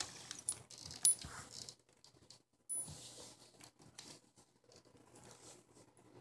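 Rubbing and rustling of a hand and a handheld phone against a cat's fur as it is petted, with a few sharp metallic clinks from its collar; the loudest clink comes about a second in.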